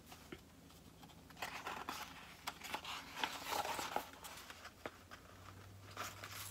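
Paper rustling as a page of a picture book is turned, with a few light clicks of the page and cover being handled; the rustle lasts a couple of seconds, starting about a second and a half in.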